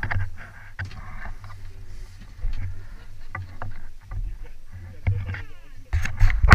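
Sounds aboard a small boat on a river: a steady low rumble of water and wind with scattered knocks and clatter of gear against the boat, and a run of louder knocks near the end.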